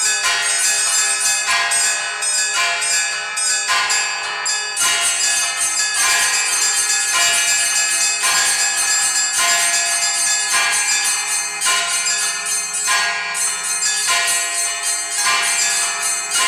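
Orthodox church bells rung by an automatic electronic bell-ringing system in a full Paschal peal: small high bells struck in quick succession over the ringing of larger bells, many tones overlapping without a pause.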